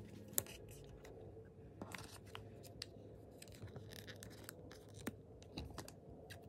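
Quiet handling of a tiny paper sticker and a small plastic miniature board: light fingertip clicks and taps, the sharpest about half a second in, and soft paper rustling as a sheet of paper is pressed over the board and lifted off.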